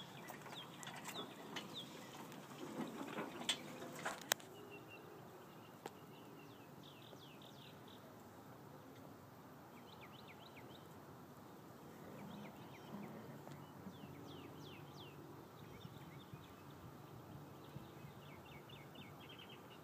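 A few sharp knocks and clatters in the first four seconds, then a faint steady outdoor background with short runs of quick, high chirps every few seconds.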